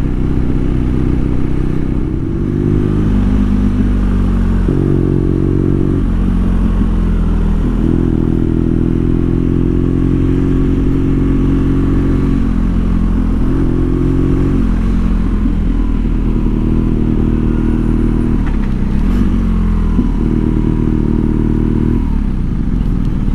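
BMW R nineT's boxer-twin engine running as the bike rides at low speed, its note rising and falling several times as the throttle opens and closes, over a steady low rumble.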